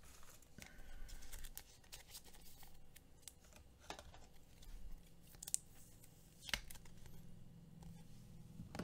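Faint handling sounds of a trading card and a clear plastic card holder: light rubbing with a few soft clicks.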